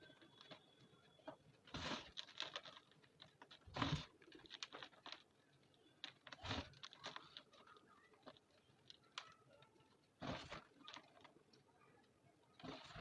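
Reformed gym chalk being crushed: five sharp crunches spread a few seconds apart, the second the loudest, each trailing off into small crumbling crackles as the dusty chalk breaks up.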